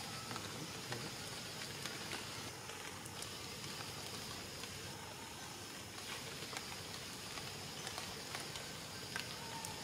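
Steady rainfall: an even hiss with scattered sharp ticks of single drops.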